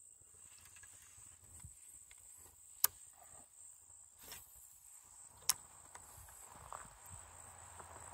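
Faint, steady, high-pitched insect chorus, with two sharp clicks about three and five and a half seconds in.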